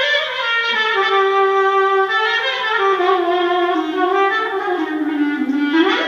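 Solo clarinet playing a taksim, an unmetered improvised Turkish melody. The line steps gradually downward through most of the phrase, then sweeps sharply upward near the end.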